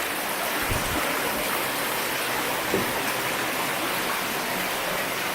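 Rushing water of a stream: a steady, even rush with no change.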